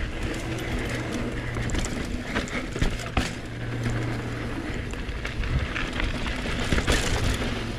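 Mountain bike riding fast down a rocky trail: frequent rattles and knocks from the bike over steady rushing noise.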